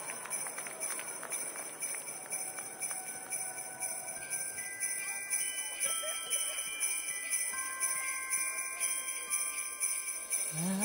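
Sleigh bells jingling in a steady rhythm. From about four seconds in, held high notes join one after another and build up.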